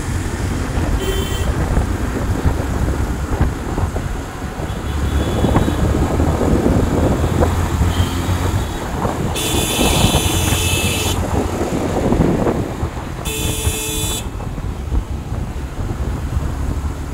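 Road traffic heard from a moving vehicle: steady engine and tyre rumble, with a short horn toot about a second in, then a long horn blast around the middle and a shorter one a few seconds later.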